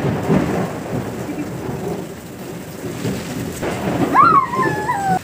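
Heavy rain pouring down steadily, with thunder rumbling over the first couple of seconds and then easing. Near the end a brief high voice rises and falls in pitch.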